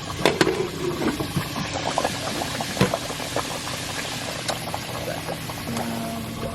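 Pork chops frying in hot oil in a pan: a steady sizzle full of small crackles, with a few sharper pops.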